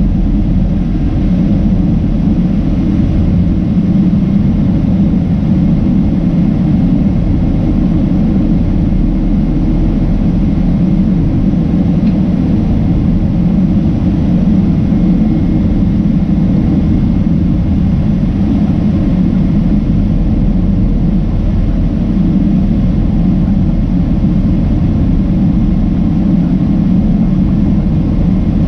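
Steady cabin noise of a Boeing 767-300ER climbing after takeoff: a low rumble from the twin jet engines and rushing airflow over the fuselage, with a faint steady whine above it and no change in level.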